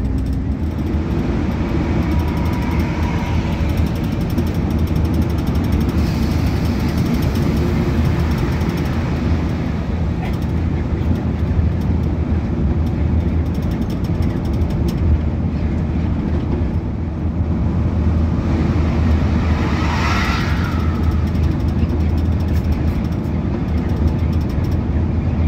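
Steady drone of an intercity coach's engine and tyres heard from inside the cabin while cruising on a highway. A short higher sound rises out of it about twenty seconds in.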